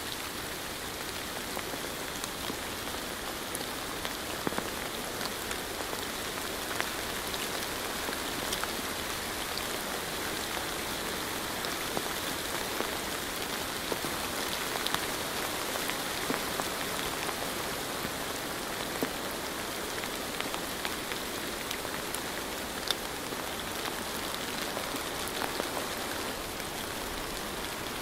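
Steady rain falling, with scattered individual drops ticking sharply now and then.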